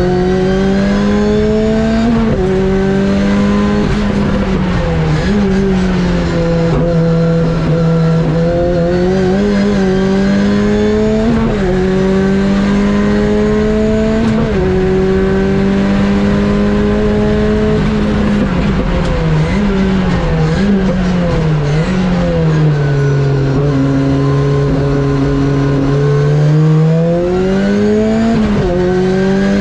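Ford Escort RS Cosworth's turbocharged 2.0-litre four-cylinder being driven hard on track. The revs climb and drop back over and over, as on gear changes, and then fall away for a few seconds in the second half before climbing again near the end.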